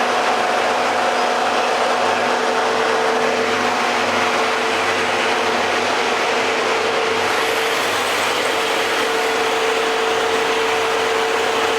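FSSh-1A woodworking spindle moulder running with no cut, a steady motor and spindle whine over a loud, even noise.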